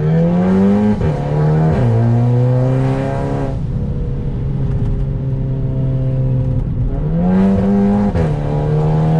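VW Scirocco 1.4 TSI turbocharged four-cylinder engine heard from inside the cabin, accelerating from first gear. The engine note climbs and falls back at gear changes twice in the first two seconds, holds steady for several seconds, then climbs again and drops with another shift near the end.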